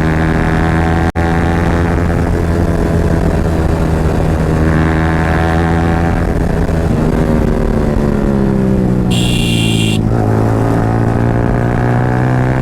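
Yamaha R15's single-cylinder engine running through an aftermarket Akrapovic exhaust while riding. Its pitch holds steady, falls off about eight seconds in, then climbs again as the throttle is opened. A high tone lasting about a second sounds around nine seconds in.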